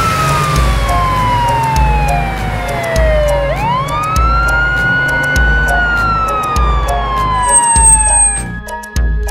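Police car siren in a slow wail: the pitch falls steadily, sweeps sharply back up about three and a half seconds in, holds, then falls again and stops shortly before the end. It sounds over background music with a steady beat.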